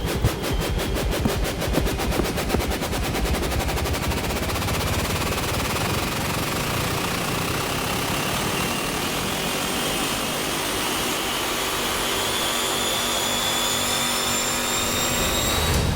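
Electronic music build-up: a drum roll that speeds up until its hits blur together, under a sweep that climbs steadily in pitch and cuts off at the end.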